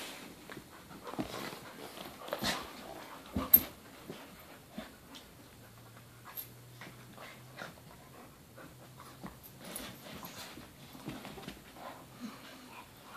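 A puppy and two older dogs play-wrestling: scuffling and dog sounds, with scattered sharp knocks. The loudest knock comes about three and a half seconds in.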